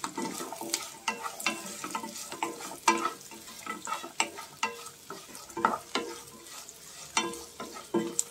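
Wooden spatula stirring and scraping chopped beans, onions and green chillies frying in oil in a non-stick pan, in many irregular strokes over a light sizzle.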